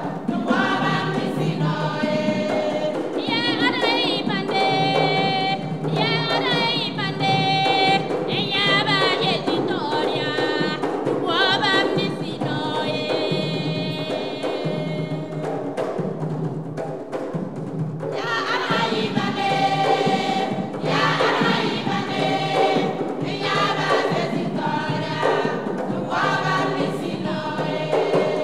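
A women's gospel choir singing a song in Mooré in full, high voices, accompanied by cajón box drums.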